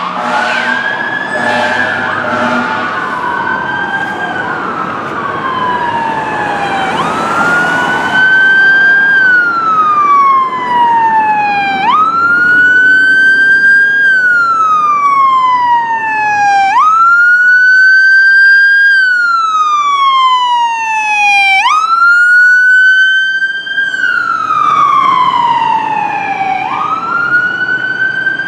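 Fire department emergency vehicle sirens on wail. For the first several seconds two or more sirens overlap, then a single wail rises quickly and falls slowly, about once every five seconds.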